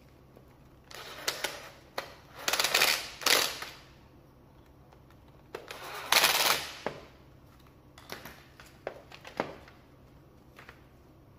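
Makita TD110D 12-volt cordless impact driver hammering screws loose in several short bursts, the longest about a second. Near the end, a few light clicks and knocks of the plastic housing being handled.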